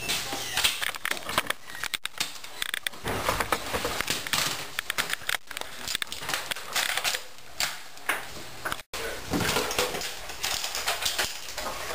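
Irregular clicking and clattering of plastic Nerf blasters being handled and fired, with a brief cut-out about nine seconds in.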